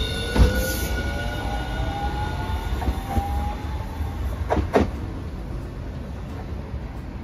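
Hiroden low-floor articulated tram accelerating away: the electric traction motors whine, rising in pitch over the first four seconds, over a low rumble of the wheels. A few sharp clacks come about four and a half seconds in as the wheels cross track joints.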